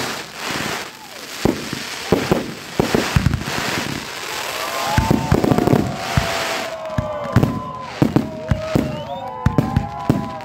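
Fireworks display: aerial shell bursts going off in quick succession, sharp bangs and crackle one after another. From about halfway, several long whistling tones glide up and down in pitch over the bangs.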